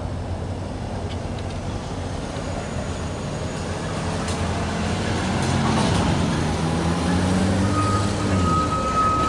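Propane delivery truck approaching, its engine growing louder and easing in pitch as it slows. A steady high squeal comes in near the end.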